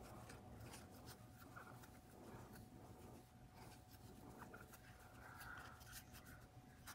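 Near silence, with faint soft rubbing and small scratches from a crochet hook pulling amigurumi yarn through stitches as double crochets are worked.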